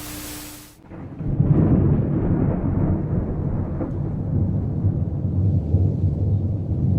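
A brief burst of hiss, then from about a second in a long, low rolling rumble of thunder that goes on steadily.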